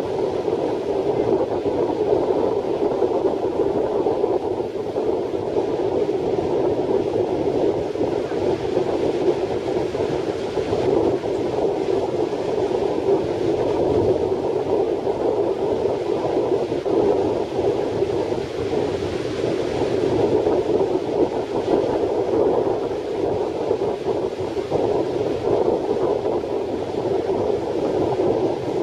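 Strong wind buffeting the microphone over breaking surf: a steady, dense rushing noise with no pauses.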